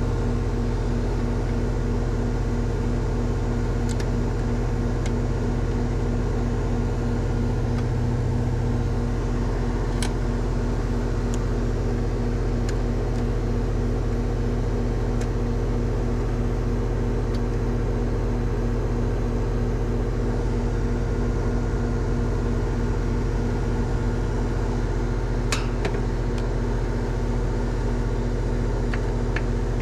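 Goodman heat pump outdoor unit running, its compressor and condenser fan making a steady hum, both drawing current within their rated amps. A few light clicks sound over it.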